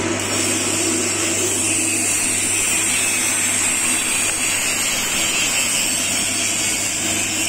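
MIG welding arc on 304 stainless steel with 1.2 mm flux-core 308L wire, running steadily as the weld bead is laid, over a steady low hum.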